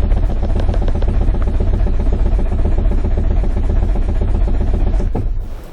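The 2005 Nissan Sentra's 1.8-litre four-cylinder engine cranks steadily on the starter with the throttle held wide open and does not start: a relative compression test, the rhythm of the cranking following each cylinder's compression stroke. The cranking stops suddenly near the end.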